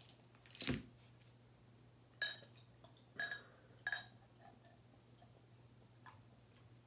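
Beer bottle opened and poured into a pint glass: a sharp click about half a second in, then three ringing glass clinks as the bottle and glass touch, and a quiet pour.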